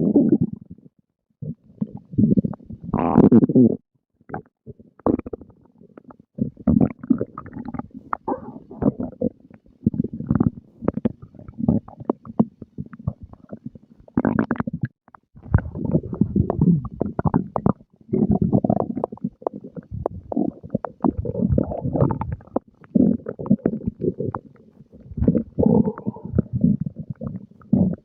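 A person's stomach growling and gurgling after a meal, in irregular bursts of low bubbling full of short pops and clicks, with brief pauses between them.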